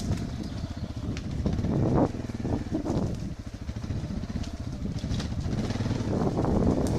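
Enduro motorcycle engine running under load, the revs rising and falling as the throttle is opened and closed, with swells about two seconds in and again near the end, and scattered sharp knocks and clicks over it.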